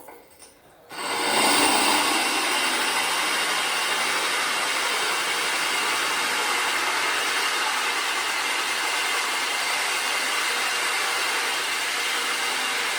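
Drill with a core bit cutting into wet natural stone tile at high speed. It starts about a second in, then runs as a steady grinding.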